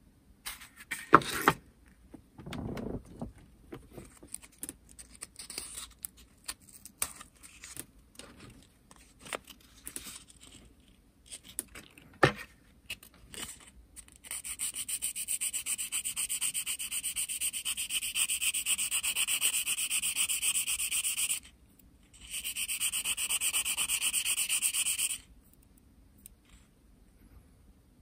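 Small clicks and taps of tools and plastic model parts being handled, then steady hand sanding or filing of a small plastic part: one long run of rubbing, a short break, and a second shorter run.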